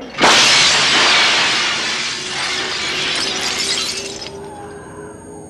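Glass-shattering crash sound effect: a sudden loud smash that fades out over about four seconds. A faint held musical tone is left underneath near the end.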